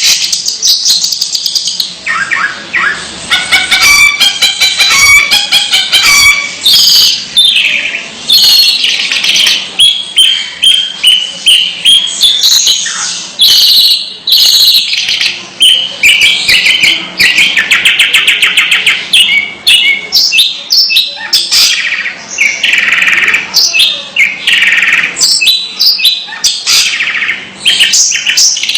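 Long-tailed shrike (cendet) calling loudly and almost without pause: a varied run of rapid chattering notes, slurred whistles and fast trills.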